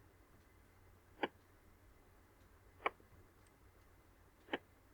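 Three single computer mouse clicks, about a second and a half apart, against a faint quiet room background.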